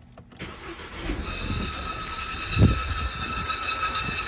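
Volkswagen CC 2.0 turbo engine starting and running. From about a second in, a steady high-pitched whine sounds over it, with a low thump about halfway through. This whine is the strange noise the owner traced to a blown relay fuse for the electric pump, not a bearing or the fuel pump itself.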